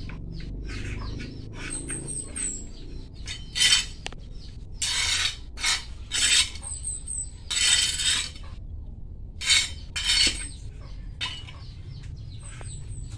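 Hands scooping and pressing potting soil into a pot around a freshly repotted elephant ear plant: a run of short gritty scrapes and rustles, louder and more frequent after a few seconds. A small bird chirps a quick string of high notes three times.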